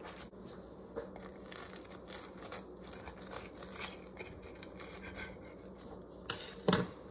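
A knife sawing through a toasted sourdough panini, with repeated crisp scraping and crunching of the crust, and two sharp knocks near the end.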